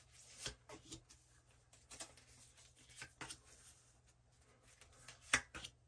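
Tarot cards being handled and laid down one by one on a cloth-covered table: faint, scattered soft taps and rustles, the sharpest a little before the end.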